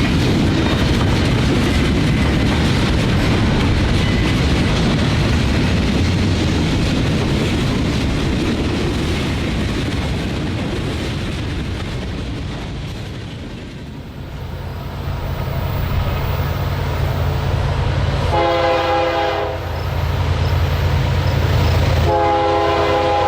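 Freight train rolling past with steady rail and wheel noise. After a brief dip, a diesel locomotive's engine drones low and its chime air horn sounds twice: a short blast, then a longer one near the end.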